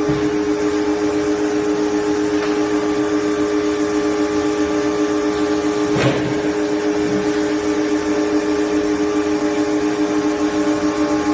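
Large plastic-drum blow-moulding machine running with its mould closed: a steady, loud hum with a low two-note drone, and a single sharp knock about six seconds in.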